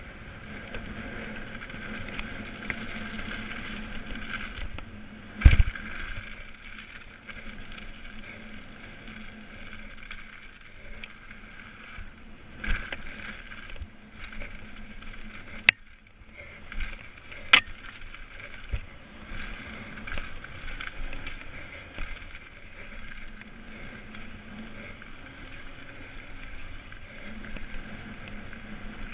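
Specialized Demo 26-inch downhill mountain bike descending a dirt trail at speed: a steady rush of tyres on dirt and wind, broken by sharp clacks and knocks as the bike hits bumps, the loudest about five seconds in and several more in the middle.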